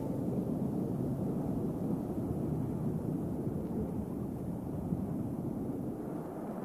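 Steady low rumbling wash with no distinct events: the underwater ambience laid under lake-bed footage.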